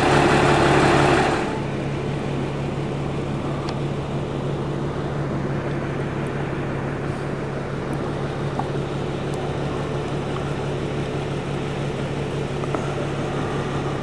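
Diesel engine of an Isuzu four-wheel-drive tour bus idling with a steady hum. It is louder for about the first second and a half, then settles to a lower, even level.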